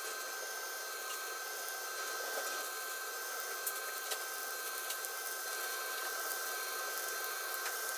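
Fish steaks coated in corn flour frying in a pan of oil: a steady sizzle with scattered small crackles.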